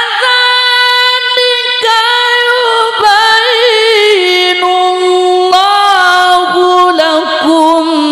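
Male qari reciting the Quran in melodic tilawah style through a microphone: one long, ornamented phrase of wavering held notes, stepping down in pitch about halfway through and again near the end.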